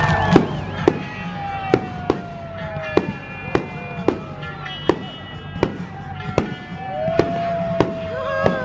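Fireworks going off in a rapid series of sharp bangs, one every half second to a second, with music playing underneath.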